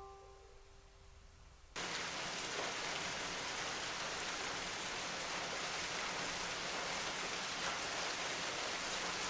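Steady rain falling, starting abruptly a little under two seconds in, with the odd distinct drop ticking through it; before it, the last note of the background music fades away.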